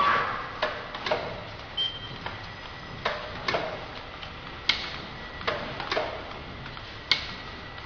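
Automatic auger-fed tea bag packaging machine running: a string of sharp mechanical clicks, about one or two a second at uneven spacing, over a faint steady high tone.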